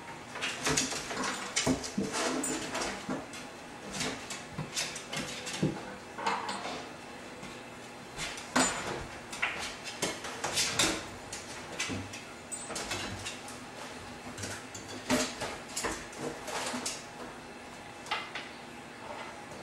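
Wooden kitchen drawers knocking and rattling under a dog climbing the pulled-out drawers, with the scrabble of claws on the wood, in irregular clusters of sharp knocks and clatters.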